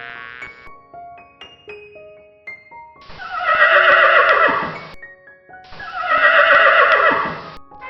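A horse neighing twice, each whinny about two seconds long and falling in pitch at the end. Light background music of single notes plays underneath.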